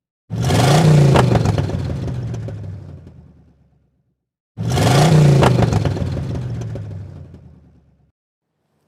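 Car engine revving, played twice as the same sound effect: each time it starts abruptly, the engine pitch climbs then falls away as it fades over about three and a half seconds.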